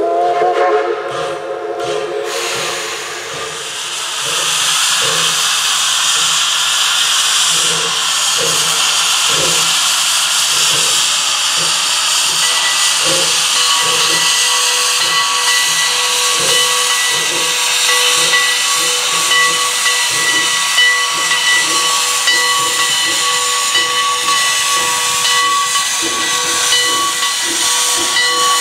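Heisler 6 geared steam locomotive giving a short chime-whistle blast, then a loud steady hiss of steam from its open cylinder cocks, with slow regular exhaust beats as it starts to move off. A thin steady whistling tone joins the hiss about halfway through.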